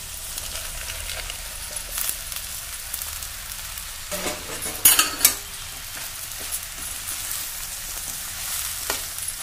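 Vegetables sizzling in hot oil in a steel pan as they are stirred, with metal clinks and scrapes against the pan and a louder clatter about five seconds in.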